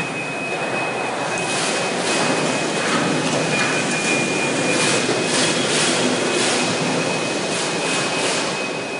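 Steady, loud industrial machinery noise with a thin, steady high-pitched whine running through it.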